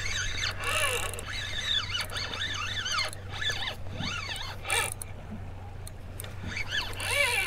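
Spinning reel's drag slipping and buzzing as a hooked fish, a large stingray, pulls line off in runs; the whirring rises and falls in pitch with each surge, several times over, loudest about five seconds in and near the end.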